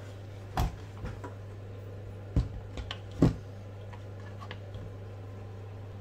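Aluminium RC car parts clicking and knocking against a plastic chassis as they are handled and pressed into place: a few scattered sharp taps, the three loudest near the start and around the middle, over a steady low hum.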